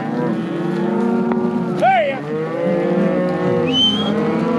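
A herd of cattle bawling, many long mooing calls overlapping one another.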